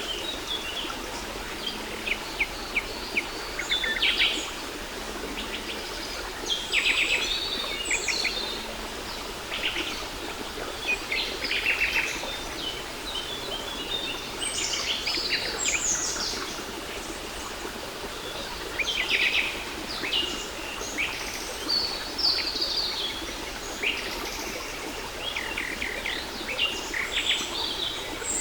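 Several birds singing and chirping, with quick trills and short calls that overlap, over the steady rush of a waterfall.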